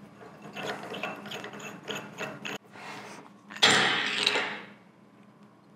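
Lever handle of a Dorian SDN40CA wedge lock tool post being threaded into the tool post's flange nut: small metallic clicks and rattles, then a louder scrape about three and a half seconds in.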